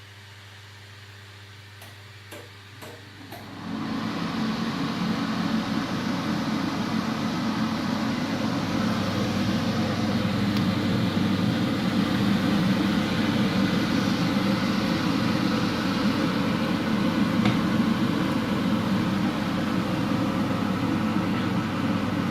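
Cooker hood extractor fan (Beko HCA62541B) switched on after a few faint clicks, starting about four seconds in and then running steadily at high speed with a loud rush of air.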